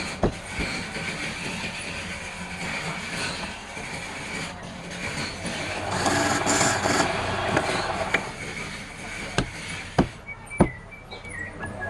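Wood lathe running with a steady hum while a cutting tool scrapes the spinning palm wood, the scraping louder between about six and eight seconds in; a few sharp knocks near the end.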